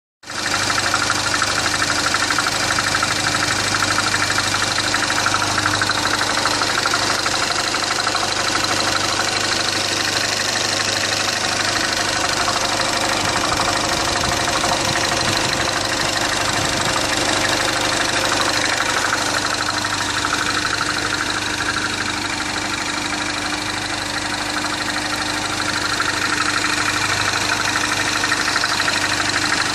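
2010 Mini Cooper Clubman S's 1.6-litre turbocharged four-cylinder idling with a steady knocking. The owner suspects the timing chain "death rattle" rather than rod knock.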